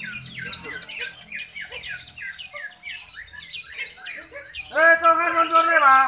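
Caged lovebirds chirping in fast, high twittering runs. Near the end a loud, long drawn-out call cuts in over them.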